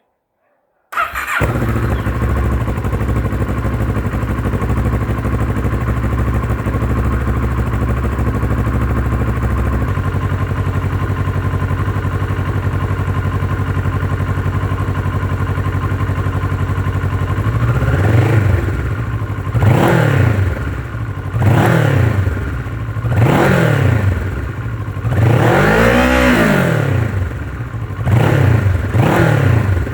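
Kawasaki ER-6n's 649 cc parallel-twin engine on its stock exhaust, starting about a second in and idling steadily, the idle settling slightly lower about ten seconds in. In the second half it is blipped repeatedly, about eight short revs rising and falling, one held longer.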